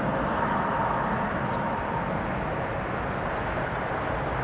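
Airbus A320's jet engines at approach power on short final, a steady rush heard from a distance, with a faint whine that fades about two seconds in.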